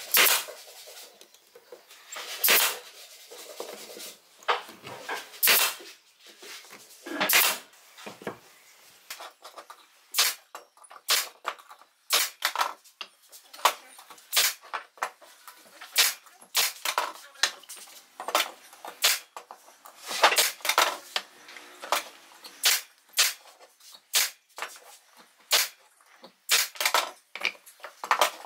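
Nail gun firing brads into pallet-wood frame corners: sharp single shots, a few spaced out at first, then about one every second from roughly ten seconds in.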